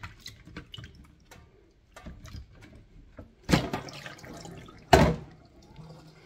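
Cherries being rinsed in a red plastic container in a stainless steel sink: water dripping and sloshing with small clicks of fruit and plastic, a louder rush of water about three and a half seconds in, and a short, loud sharp knock about a second later.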